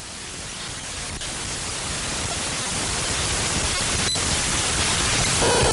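Static hiss fading in and swelling steadily louder, with a few faint clicks. Just before the end a harsh, buzzy tone cuts in over the hiss.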